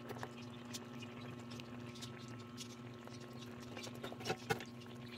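Tilapia simmering in coconut milk sauce in a pan: scattered small pops and crackles of the bubbling sauce over a steady low hum, with two sharper clicks near the end.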